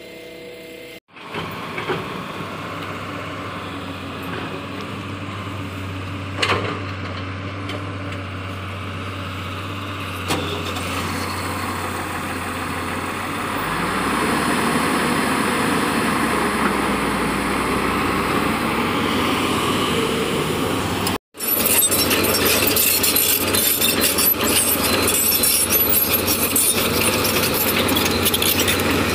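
Heavy diesel machinery engines running steadily with a low drone. The sound cuts out briefly twice and gets louder about halfway through and again near the end.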